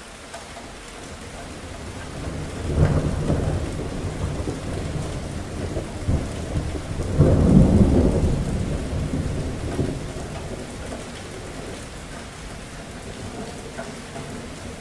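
Steady rain with two rolls of thunder: one about three seconds in, and a louder one about seven seconds in that rumbles away over the next few seconds.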